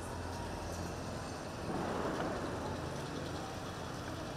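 Military truck and 4x4 engines running as they drive along the street, a steady low drone that swells slightly about two seconds in.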